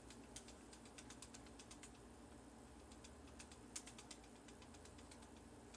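Near silence: scattered faint small clicks and taps from handling the doll's crib and bedding, over a faint steady low hum.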